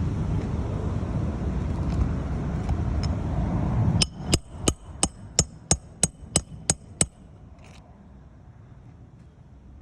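A loud, steady low rumbling noise cuts off about four seconds in. Then about ten sharp, ringing metallic strikes come at roughly three a second, like a hammer tapping on metal, and stop about three seconds later.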